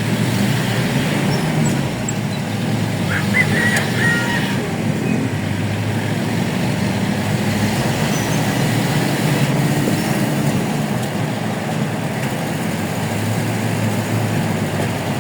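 Vehicle engine and road noise as it pulls away from a stoplight and drives on at a steady pace, with a few brief high-pitched chirps about three to four seconds in.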